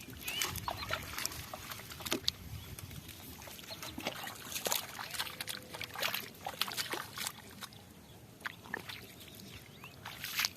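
Irregular wet splashes and sloshes of muddy water, with many small sharp clicks at uneven intervals.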